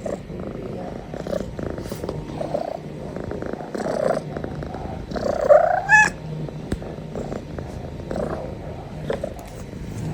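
Tabby kitten purring steadily, with a short rising squeak a little past halfway through.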